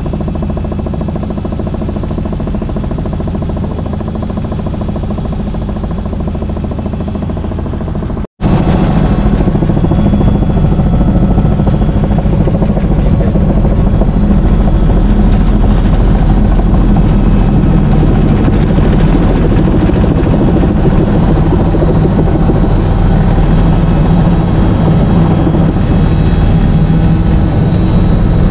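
Helicopter engine and rotor running steadily in flight, a loud continuous drone with a low hum. It drops out for an instant about 8 seconds in, then comes back louder.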